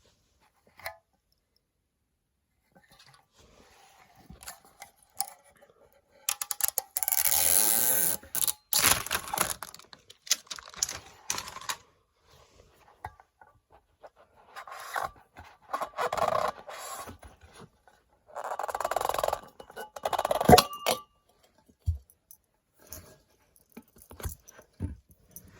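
A perfume box and its packaging being handled and opened: repeated bursts of rustling, tearing and scraping, with scattered small clicks and knocks.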